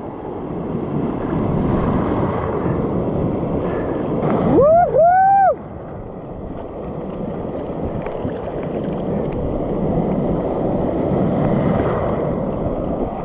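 Rushing water and surf noise with wind on the microphone as a surfboard rides a wave. A person gives a rising whoop about five seconds in.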